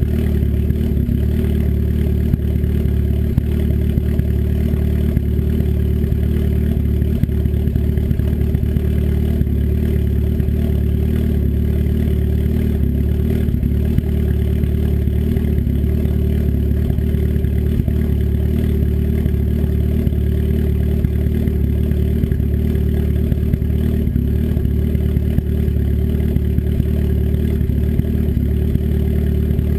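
Turbocharged engine with an S257 turbo and custom cams idling steadily through an open 3-inch turndown dump off the downpipe, with no muffler. It is warming up after a cold start, with no revs.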